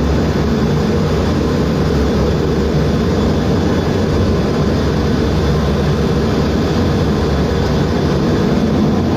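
Fighter jet engine running loudly and steadily, a heavy low rumble with no breaks.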